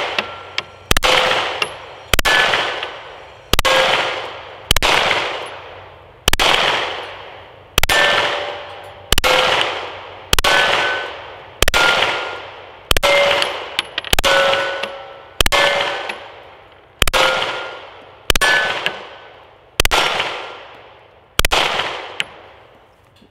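Sig Sauer P320 X5 9mm pistol fired in slow, steady single shots, about sixteen of them roughly one every second and a half, each shot echoing and fading away, with a brief metallic ring after many of them.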